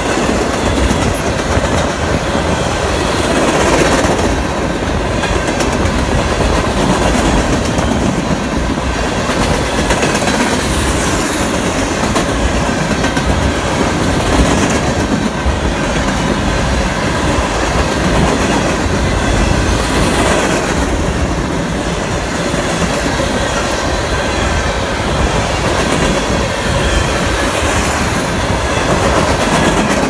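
Freight train cars rolling past, steel wheels clacking over the rail joints in a continuous loud rumble that surges every few seconds.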